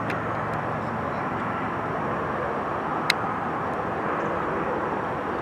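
Helicopter circling overhead, a steady drone, with one sharp click about three seconds in.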